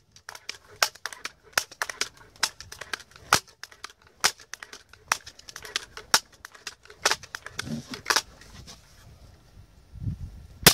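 Daisy 880 multi-pump air rifle being pumped up, its forearm pump lever clicking and clacking open and shut in quick, uneven strokes, with a few dull knocks of handling. It ends in one sharp shot at the very end.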